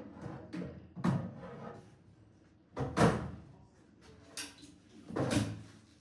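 Steam chamber of a Neptronic SKE4 steam humidifier being unclipped, unhooked and slid out: a handful of separate clunks and knocks, the loudest about three seconds in.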